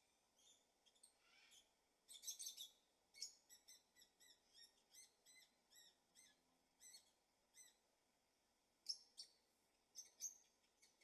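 Faint chirping of small birds: short high chirps repeating two or three times a second, with a denser flurry about two seconds in and a few louder chirps near the end.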